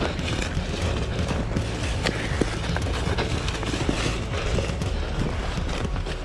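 Footsteps of a hunter and a bloodhound moving quickly through dry fallen leaves, a steady run of crunching and rustling, over a low rumble on the microphone.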